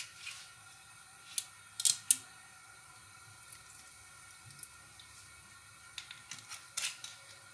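Cooking oil glugging quietly from a bottle into an empty aluminium wok, with a few sharp clicks of the bottle being handled around two seconds in and light taps later on.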